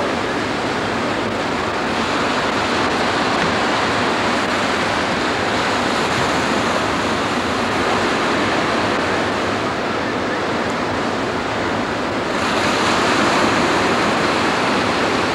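Surf washing onto a beach: a steady rushing wash of breaking waves that swells louder about twelve seconds in.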